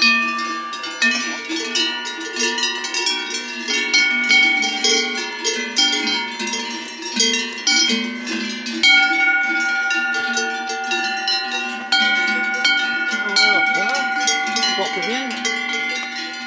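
Metal cowbells on grazing cows clanking irregularly, many overlapping ringing tones struck over and over as the cows move and feed.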